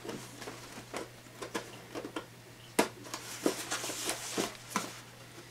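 Scissors cutting through packing tape on a cardboard box: a string of irregular sharp snips and clicks, with one louder snap a little past halfway.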